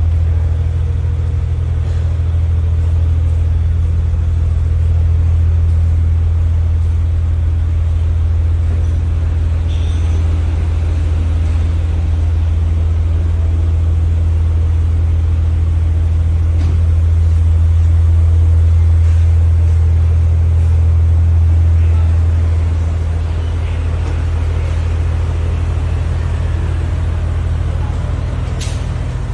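Car engine running steadily, a low even drone that eases slightly about two-thirds of the way through.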